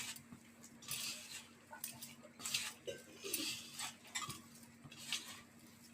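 Faint, irregular soft squishing and scraping of a thick, damp mixture of grated coconut and gram flour being mixed firmly in a bowl, about one stroke every half second to a second, with a low steady hum under it.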